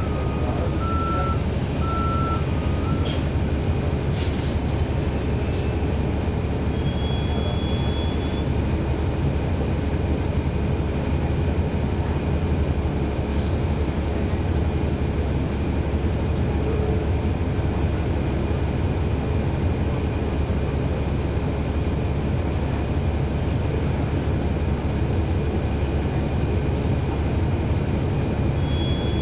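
Cabin of a 2012 NABI 416.15 (40-SFW) transit bus, its Cummins ISL9 diesel engine running with a steady low drone. Two short beeps sound about one to two seconds in.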